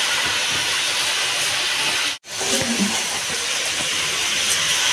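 Steady hiss, cut off briefly a little past two seconds in.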